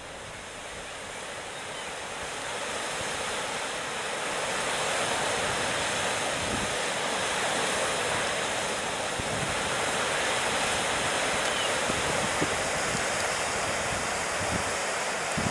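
Power-station cooling-water outfall: a steady rush of churning water pouring out along the outfall channel, growing louder over the first few seconds and then holding steady.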